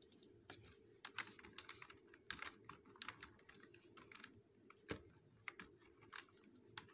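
Faint typing on a computer keyboard: irregular keystroke clicks as text is entered, over a steady high-pitched whine and a low hum in the background.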